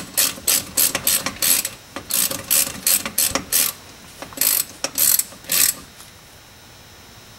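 Ratchet wrench clicking in quick repeated strokes, about two or three a second, as a brake caliper bolt is run in. The strokes come in three runs with short pauses and stop about a second and a half before the end.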